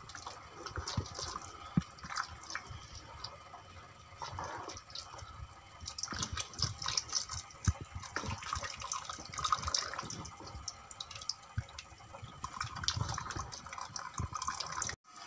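A thin stream of flour-and-water slurry pouring into a pot of stew while a silicone spatula stirs it: liquid splashing and sloshing with many irregular sharp clicks. This is the stew being thickened with the slurry.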